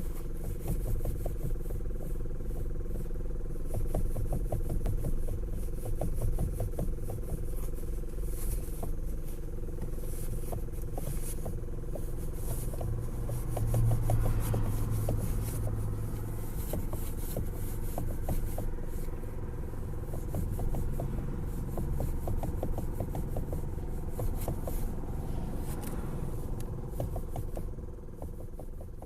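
Knocking and clicking from a worn universal joint (cross) in the steering intermediate shaft of a Hyundai Elantra HD: a run of short, irregular ticks over a steady low rumble.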